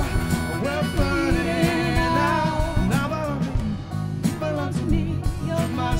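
Live band playing: drum kit, bass and guitars, with a melody line carried over them.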